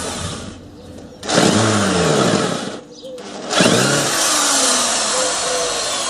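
Electric angle grinder running in two bursts: it starts about a second in, stops briefly near the three-second mark, then runs again.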